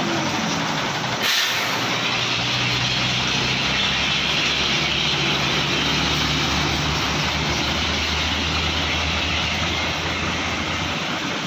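Road traffic noise: an engine running with a steady hum under a broad hiss. The hiss jumps up sharply about a second in and then holds.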